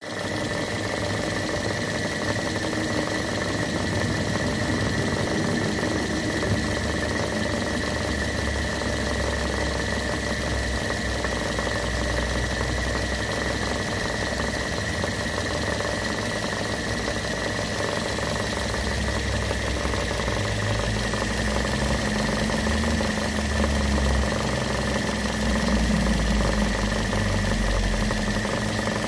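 Car engine idling, heard close at the alternator and belt-driven accessories, with a steady high whine over the low running sound. The owner takes the noise for an air-conditioning compressor low on oil.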